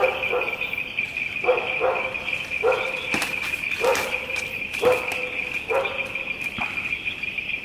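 A dog barking repeatedly, about eight short barks, some in quick pairs, over a steady high-pitched chorus of night insects.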